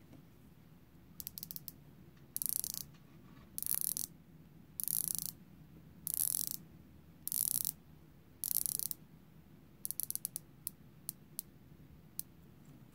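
Unidirectional ratcheting dive bezel of a Cronos L6005 watch being turned by hand. A few clicks come first, then six quick sweeps of rapid clicking a little over a second apart, then single clicks one at a time near the end.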